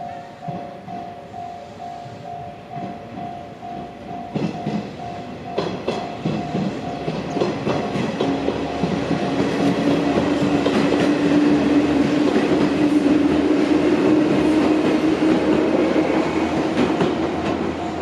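A Japanese level-crossing alarm rings with a fast two-tone ding-ding. About four seconds in, an Izuhakone Railway Sunzu Line electric train starts passing over the crossing, its wheels clicking over the rail joints, with a steady hum that is loudest in the middle. The alarm dings come through again near the end as the train moves off.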